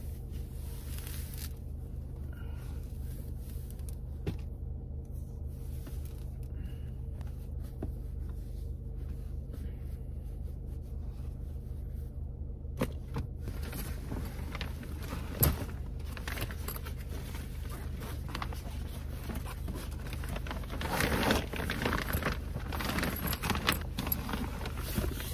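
Clothing and a towel rustling and being shuffled about in a car's cabin, with a few sharp clicks and knocks, busier in the last few seconds, over a steady low hum.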